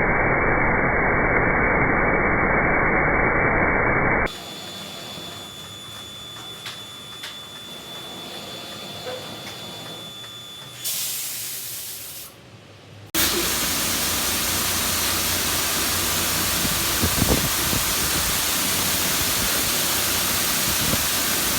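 High-pressure water jets of a touchless automatic car wash machine spraying with a steady loud hiss, broken by abrupt cuts between clips. A quieter stretch in the middle holds a thin steady high tone.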